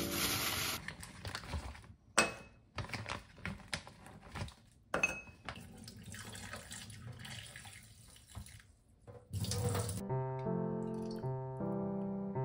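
Kitchen tap running into a stainless steel sink, the water splashing over hands rinsing something under it, with a couple of sharp knocks about two and five seconds in. Piano background music comes in near the end.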